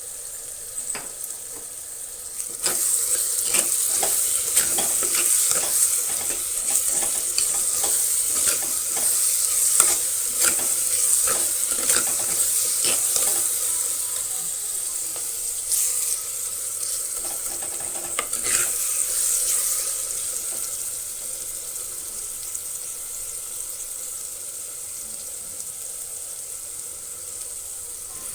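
Onions and tomatoes sizzling in oil in a pan while a spoon stirs them. The spoon scrapes against the pan many times through the first two-thirds, and the sizzle gets louder a couple of seconds in, then eases off.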